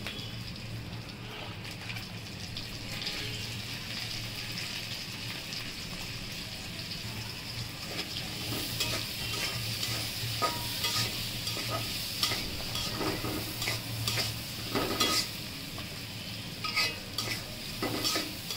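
Sliced onions sizzling as they fry in hot oil in a steel wok. From about halfway, a metal spatula scrapes and clacks against the pan as they are stirred.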